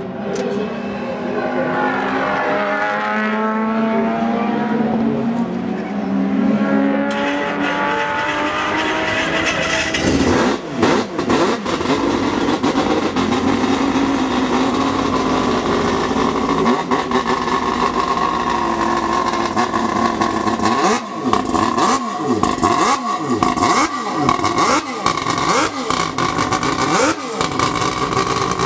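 Mazda RX-8 race car's rotary engine running and being revved, its pitch rising and falling. About ten seconds in it turns louder and rougher, with rapid crackling. Near the end come several quick throttle blips.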